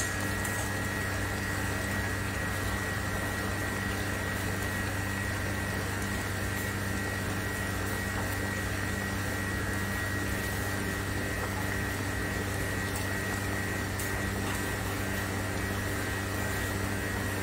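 Tilapia and tomato curry simmering in a non-stick frying pan on a gas burner, under a steady electrical hum and a constant high whine.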